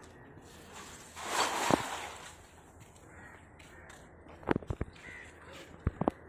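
A cast net splashing down onto the water about a second in, a short rushing splash. A few sharp knocks follow near the end.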